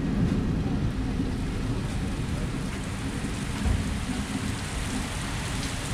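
Heavy monsoon rain pouring steadily, over a low continuous rumble, with a single thump about three and a half seconds in.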